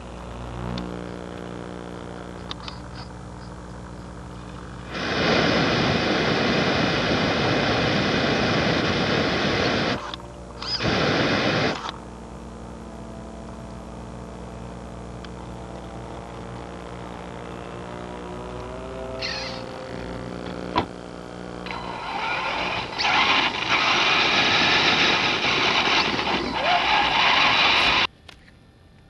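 Onboard audio from a flamethrower-equipped RC monster truck: a steady electrical hum with a short rising motor whine about two-thirds of the way through. Three long, loud bursts of even hiss start and stop abruptly. They fit the flamethrower firing or dropouts of static on the camera's wireless link.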